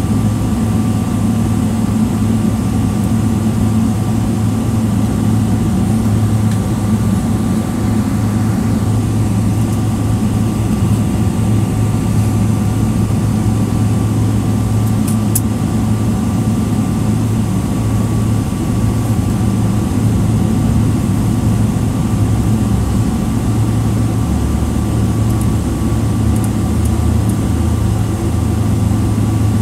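Steady drone of a Boeing 777-300ER's GE90-115B jet engines running at low power, heard inside the cabin: a deep hum with a steady whine above it. It does not change, consistent with the airliner taxiing or holding before takeoff.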